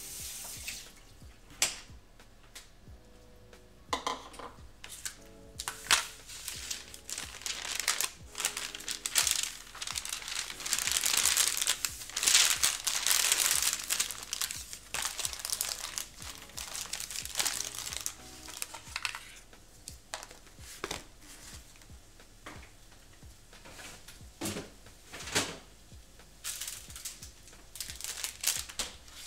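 Crinkling and rustling of packaging being handled during kitchen prep, with scattered knocks and clatter of dishes. The rustling is heaviest around the middle. Faint background music plays underneath.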